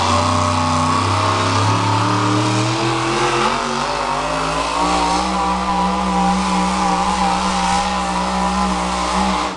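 Pulling truck's engine running at high revs under full load as it drags a weight-transfer sled down the pull track. The pitch climbs over the first few seconds, holds steady, and then cuts off suddenly at the very end.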